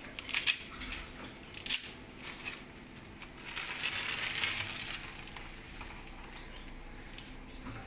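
Dry spaghetti cracking as it is broken and dropped into a steel pot of hot water, a few sharp cracks in the first two seconds. Then a soft hiss from the hot water around the middle.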